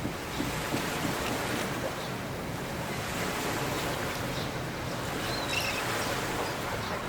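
Harbour ambience: a steady wash of water and waves with wind noise on the microphone, and a few faint short high chirps about five seconds in.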